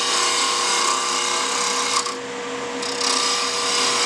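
A gouge cutting into a spinning wooden spindle on a wood lathe, in two long cuts with a short break about two seconds in, over the lathe's steady motor hum.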